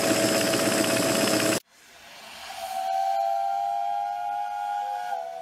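Stuart S50 model steam engine running fast on compressed air. It cuts off abruptly about a second and a half in, and a steam whistle swells in, sounding a steady chord for about two and a half seconds.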